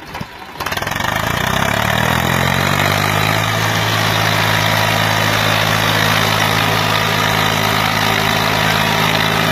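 Tractor diesel engine revving up, rising in pitch for a couple of seconds, then running steadily at high revs as it pulls the tractor uphill with men weighting its front end.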